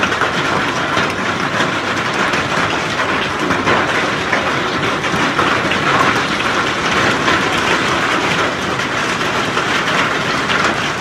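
Hail and heavy rain falling together, a steady dense clatter of countless small stones and drops hitting the ground and surfaces.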